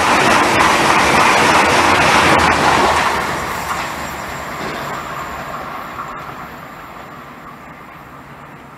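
Locomotive-hauled passenger train passing at speed: a loud, steady rush of wheels on rails that dies away steadily over the last few seconds.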